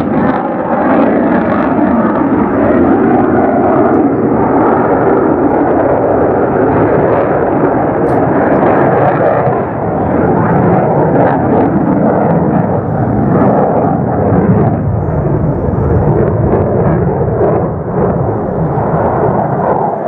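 Boeing F/A-18F Super Hornet's twin General Electric F414 turbofan engines, a loud, continuous jet rumble as the fighter flies its display overhead, dipping briefly about ten seconds in.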